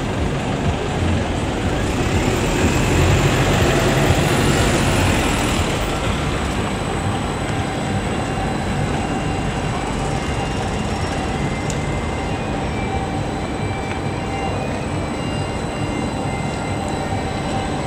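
Edinburgh tram, a CAF Urbos 3 electric tram, running past on street rails: a continuous rumble of wheels on the rails with a faint steady electric hum, over city traffic noise that swells for a few seconds near the start.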